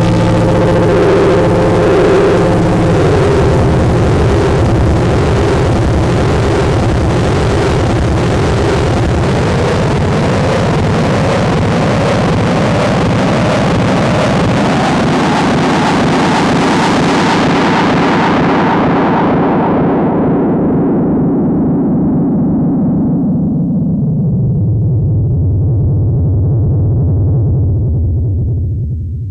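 Synthesized sci-fi UFO sound effect: a dense electronic drone with wavering, warbling tones. Over the last ten seconds its high end gradually dies away, leaving a low hum that fades out near the end.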